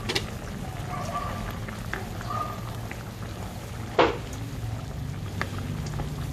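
Tomato sauce simmering in a metal pan, bubbling and popping steadily while a spatula stirs the chicken, with one sharp knock of the spatula against the pan about four seconds in.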